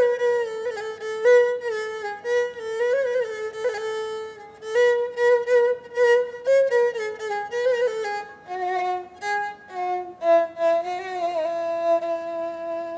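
Egyptian rababa, a bowed spike fiddle, playing a solo melody with slides and ornaments. About two-thirds through, the line drops lower and settles into a long held note near the end.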